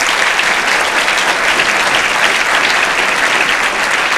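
An audience applauding steadily: the dense patter of many hands clapping.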